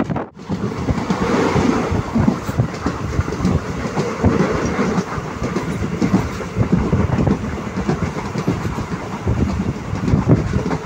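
Express passenger train running at speed, heard from inside a coach: a steady rumble with the wheels clattering over the rails. There is a momentary dropout just after the start.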